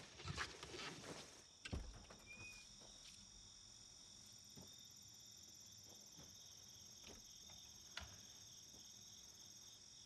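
Faint, steady chorus of insects chirring in woodland. A few soft knocks and rustles sound in the first two seconds, and a single sharp click about eight seconds in.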